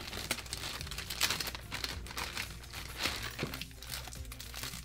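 Plastic packaging crinkling and rustling in irregular bursts as it is handled and opened by hand, unwrapping a small in-ear earphone.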